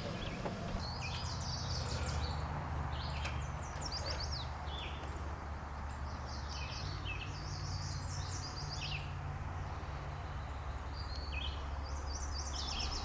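Songbirds singing several short phrases of quick, high, falling notes over a low steady rumble.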